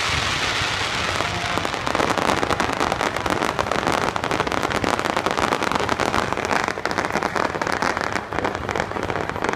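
Aerial fireworks: a hissing rush at the start, then a long stretch of dense crackling, many sharp pops overlapping like rain.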